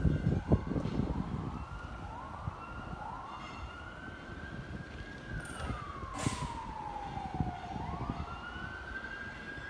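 Emergency vehicle siren wailing, its pitch climbing and holding, then falling in one long slow sweep and climbing again near the end, over a low traffic rumble. A few sharp knocks near the start.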